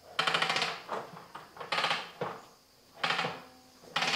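Wall-mounted Flexzilla retractable air hose reel clicking rapidly as the hose is pulled out in three tugs, a quick burst of ratchet clicks with each pull. Another pull starts near the end.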